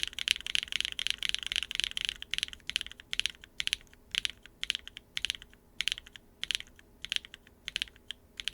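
Tactile mechanical keyboard switches being typed on: a fast run of keystrokes for about two seconds, then slower single keystrokes, about two a second.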